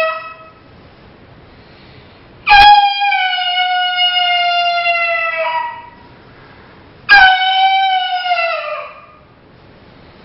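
Coyote howls blown on an MFK four-reed diaphragm call: two long held notes, each starting suddenly, sliding slowly down in pitch and falling away at the end. The first lasts about three seconds and the second about two. The tail of an earlier howl dies out just as the first begins.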